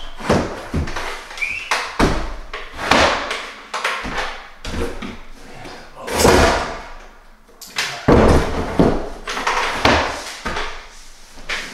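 Old barnwood plank knocking and scraping against the wall and the boards below as it is fitted into the top row: a string of irregular wooden knocks and clunks.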